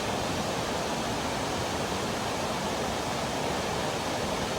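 Steady rain falling, a constant even hiss with no breaks.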